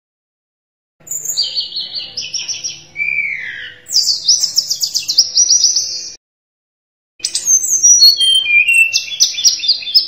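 Tledekan gunung, a blue flycatcher, singing: quick high trilled phrases with a slurred whistle that dips low, starting about a second in. After a short pause comes a second burst whose notes step downward in pitch.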